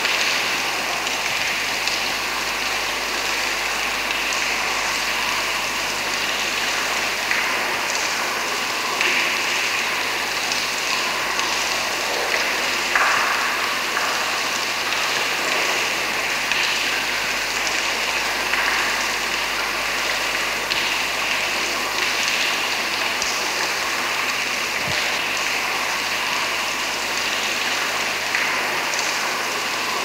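Water dripping in a large cavern: many drips overlap into a steady wash of sound, with a few louder single drops standing out now and then.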